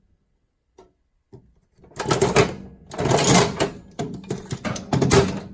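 Metal hand tools clattering and rattling as they are rummaged through, a dense run of clicks and knocks starting about two seconds in.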